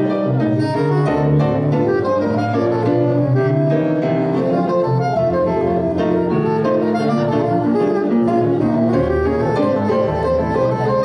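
Live jazz: a soprano saxophone playing a busy line of short notes over a walking electric bass guitar.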